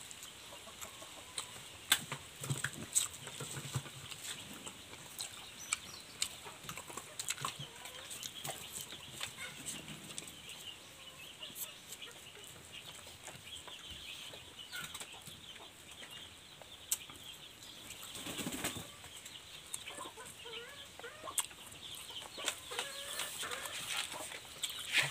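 Eating sounds: a man chewing and smacking his lips as he eats pancit, rice and chicken with his fingers, heard as a scatter of small clicks and smacks, with a somewhat louder one about two-thirds of the way through.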